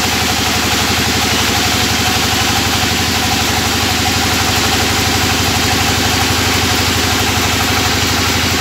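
Band sawmill's engine running steadily at an even pace, with a constant rapid pulsing.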